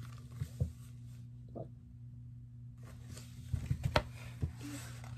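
Soft knocks, clicks and rustles of a hardcover picture book being handled and moved about, loudest in a quick cluster of clicks about three and a half to four seconds in, over a low steady hum.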